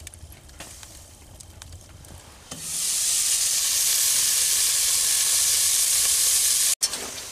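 Chunks of seasoned coyote meat sizzling in a metal pot on a wood stove, cooked without butter. The steady high hiss starts loudly about two and a half seconds in, after a quieter start, and breaks off abruptly near the end.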